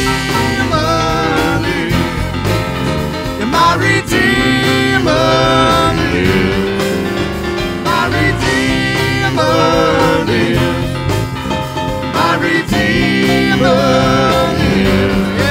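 Live church worship band with singers performing a gospel chorus: sung phrases with vibrato recur every few seconds over a steady instrumental accompaniment.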